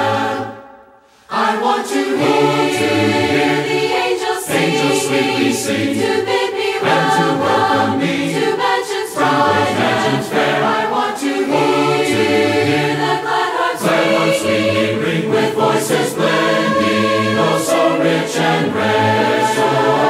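Background music: a choir singing a gospel hymn. The music fades to a brief gap about a second in, then starts again.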